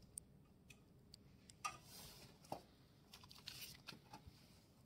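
Near silence with a few faint, scattered clicks from hand tools being handled.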